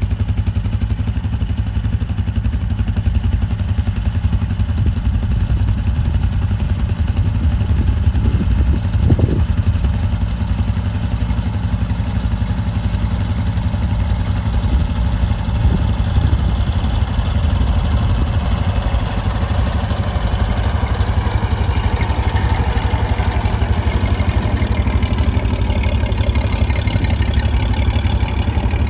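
Farmall 460 tractor engine running steadily with mechanical clatter, under a low heavy rumble. From about two-thirds of the way in, a higher-pitched machinery noise builds up over it.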